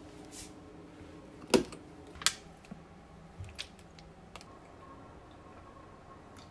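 A clear plastic water bottle being handled: a sharp knock and a click close together, then a few small plastic ticks and crinkles as it is gripped and opened.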